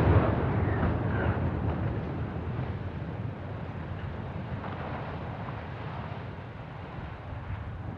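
Deep rumble of a concrete cooling tower collapsing after its demolition blast, with the echo of the charges. It is loudest at first, fades over the first few seconds and then settles to a lower, steady rumble.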